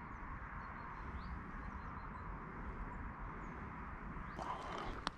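Outdoor river ambience: a steady rushing background hiss with faint birds chirping. Near the end there is a brief rustle of handling and a sharp click.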